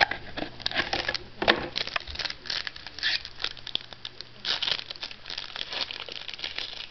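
Irregular crinkling and rustling of paper and plastic as trading cards, a checklist and pack wrappers are handled, with many small crackles.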